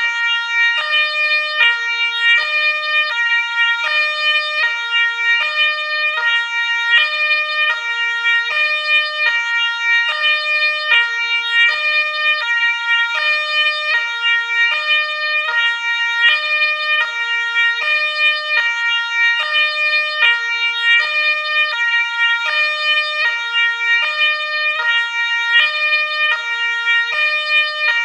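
Two-tone ambulance siren alternating evenly between a high and a low pitch, about one high-low pair a second, at a steady level.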